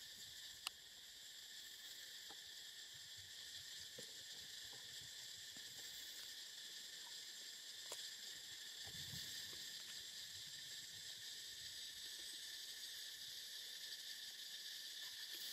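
Faint, steady insect chorus, a continuous droning hum held in several high pitches. A couple of short, sharp clicks stand out, one about a second in and another about halfway through.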